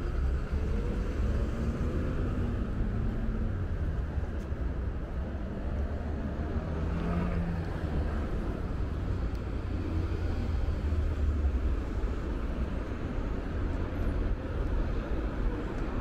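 Steady road traffic noise from a busy intersection: a continuous low rumble of cars and engines.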